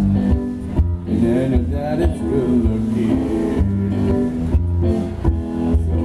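A small live band, electric guitar and keyboard, playing a slow jazz tune through a stage PA, a bending melody line over a held bass.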